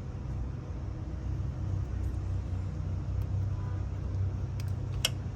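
A steady low mechanical rumble, like an engine running nearby, under a few light clicks of parts being handled, with one sharp click near the end.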